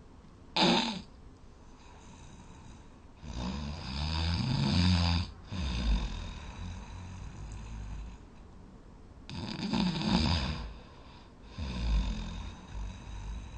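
A sleeping person snoring loudly: two long snores with deep, vibrating low tones, about six seconds apart, with shorter, weaker breaths between them. A short, sharp, loud noise comes about half a second in.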